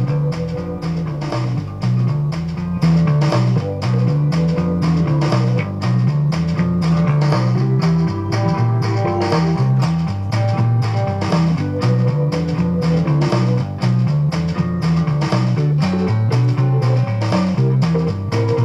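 Rock music with guitar, a stepping bass line and a steady drum beat, played from a computer through a homemade vacuum-tube amplifier into a loudspeaker.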